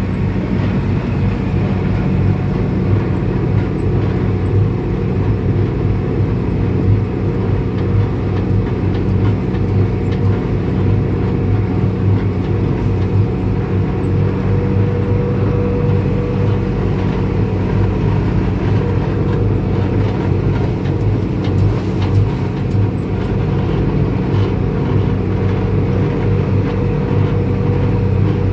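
Engine of a yellow work vehicle running steadily as it drives, heard from inside its cab as a constant low drone.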